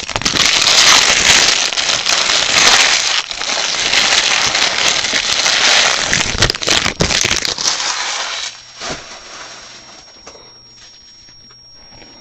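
Foil wrapper of a baseball card pack being torn open and crinkled, loud crackling for about eight seconds, then much quieter rustling.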